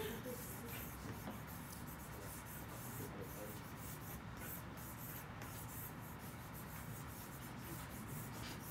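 Drawing strokes on paper pinned to a wall: repeated quick scratching and rubbing as the hair is shaded in.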